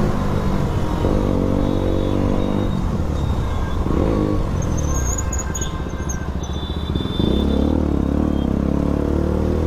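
Motorcycle engine under way, revving up and easing off several times as the rider works the throttle, then opening up harder about seven seconds in.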